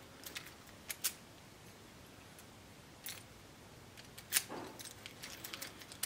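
Faint, scattered small metallic clicks of keys on a ring clinking as a new key is tried in a freshly rekeyed oval 570 lock cylinder, the loudest click about four seconds in.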